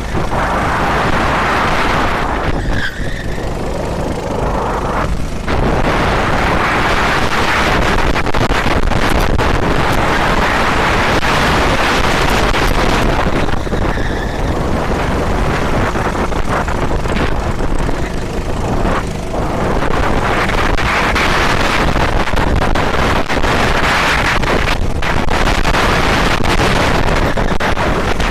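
Loud, steady rushing noise from an onboard FPV recording of a racing model, with brief dips about three, five and nineteen seconds in.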